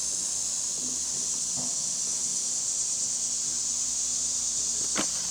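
Steady high-pitched hiss of recording background noise with a faint low hum, and a single sharp click near the end.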